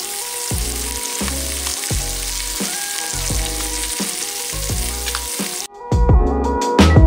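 Salmon fillets sizzling as they fry in oil in a pan, a steady hiss that cuts off suddenly near the end. Background music with a steady beat plays underneath throughout.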